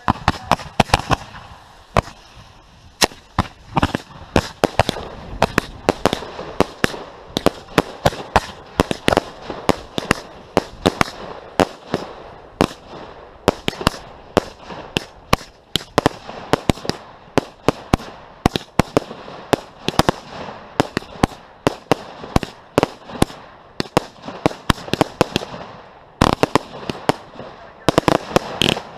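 Fireworks display: a rapid, irregular string of sharp bangs, several a second, with a particularly loud one near the end.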